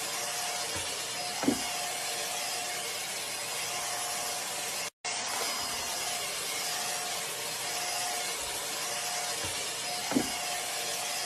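Cordless stick vacuum cleaner running with a steady whooshing motor noise and a faint steady hum. A brief sharp sound stands out twice, and the noise cuts out for an instant about halfway.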